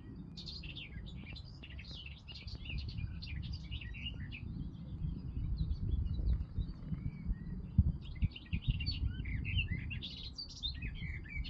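Many small birds chirping in an overlapping chorus of short, quick calls, thinning out for a few seconds midway and then picking up again. A low rumble runs underneath and grows louder in the middle, with a few thumps.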